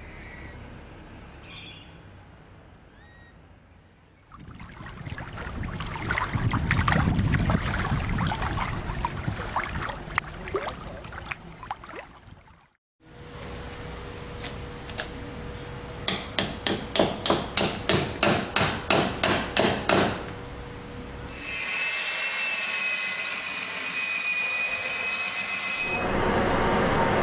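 Workshop tool sounds in several short cuts: a long stretch of rough, rasping noise, then a run of about fourteen sharp blows at three to four a second, then a steady machine whine.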